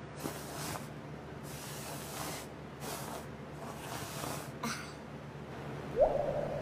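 A cartoon sleeper's breathing sound effect: several hissing, snort-like breaths in and out over a steady low hum. About six seconds in, the loudest sound comes: a short sound whose pitch jumps up quickly and then trails off.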